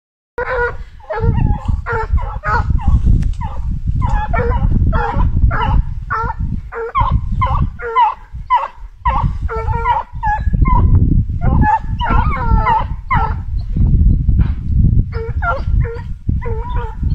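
Pack of hounds baying in full cry on a fox, several voices calling over one another in quick repeated bays and yelps, over a heavy low rumble.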